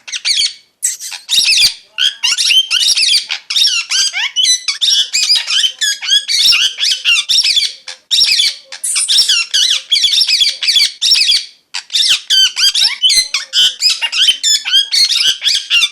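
Parrot chirping in a rapid, continuous stream of short high, bending chirps and squeaks, with a few brief pauses.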